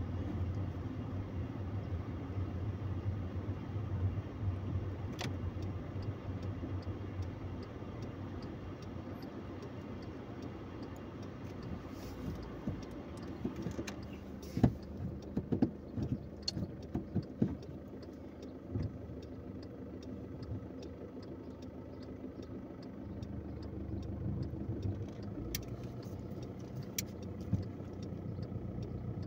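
Car engine running low and steady, heard from inside the cabin while the car creeps along. About halfway through come a few sharp knocks and clicks, followed by a run of faint, evenly spaced clicks.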